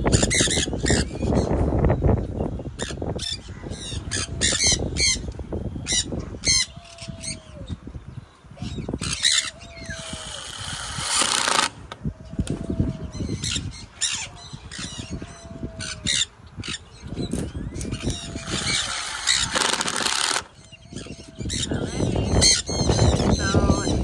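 Parrots squawking and calling again and again, over a low handling rumble from a wire cage being fitted to a wooden beam. A cordless drill runs in two short bursts, about ten seconds in and again near twenty seconds, driving screws into the clips.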